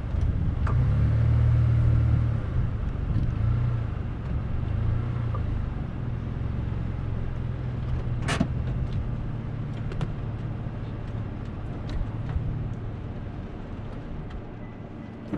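Vehicle engine idling with a steady low rumble, a little stronger in the first few seconds and easing later, with a few sharp clicks, the clearest about eight seconds in.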